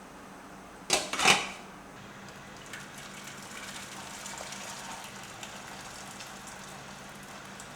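A short double clatter of kitchenware being handled about a second in, then faint rustling with a few small clicks.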